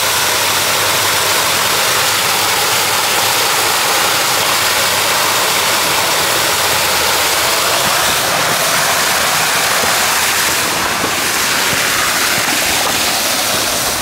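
Water rushing steadily through the overflow of a small pond's dam.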